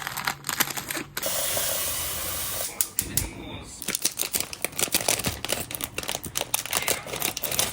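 Cooking-prep handling noises: a few clicks, then a steady hiss lasting about a second and a half, then a long run of rapid, irregular clicks and crackles.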